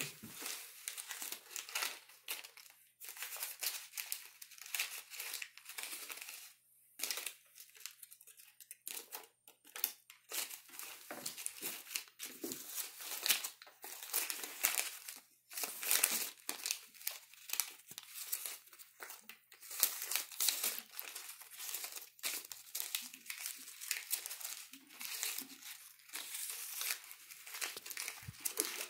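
Paper dollar bills crinkling and crumpling as a capuchin monkey rolls and scrunches them together in his hands, in irregular rustling bursts.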